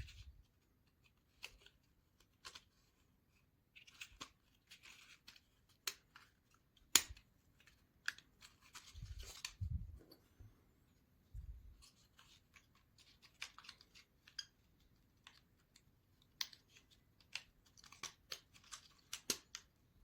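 Small basswood model-kit parts being handled and fitted together: scattered faint clicks and taps, with brief rustles and a couple of soft thumps.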